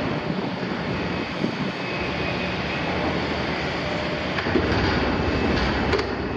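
Liebherr 974 high-reach demolition excavator's 400 kW diesel engine running steadily under hydraulic load as its shear jaw works into the steel wall of a double-walled oil tank, with a few sharp knocks of metal in the second half.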